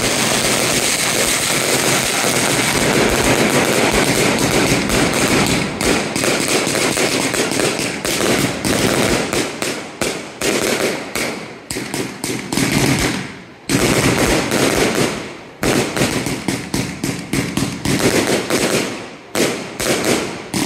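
Consumer firework cake boxes firing: a dense, continuous barrage of crackling shots. About halfway through it thins into separate volleys and single bangs with short gaps between them, dying away at the end.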